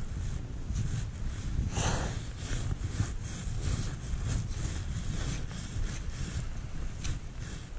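Wind buffeting the microphone in a steady low rumble, over the crackle and rustle of gloved hands crumbling a clod of damp soil, with a louder scrape about two seconds in.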